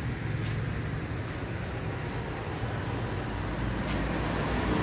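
Steady rumble of street traffic, with a few faint ticks.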